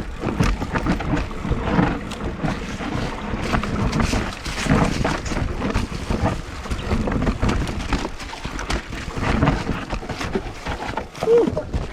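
Mountain bike riding down a rough, muddy downhill trail: constant clatter and knocks of the bike over the terrain, with wind noise on the microphone.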